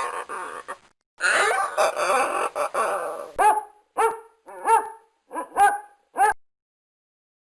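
A dog whining and grumbling for about three seconds, then giving six short, high barks about half a second apart.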